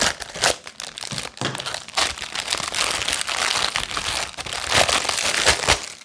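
Clear plastic packaging bag crinkling and crackling as it is handled and pulled off a silicone pop-it fidget toy; the rustle goes on without a break and stops just before the end.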